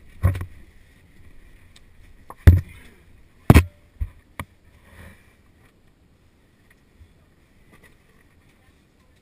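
About five sharp knocks with scraping in between, then near quiet for the last few seconds: a caver crawling through a tight passage, the helmet camera and gear bumping and scraping against rock.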